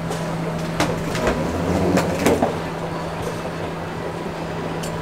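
Escalator running with a steady low hum. A few sharp knocks come between about one and two and a half seconds in.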